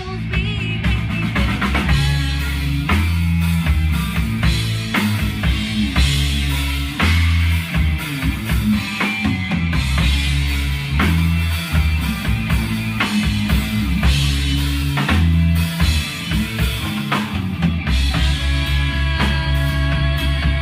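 Live rock band playing: drum kit, electric guitar and electric bass, with the full band coming in sharply at the start.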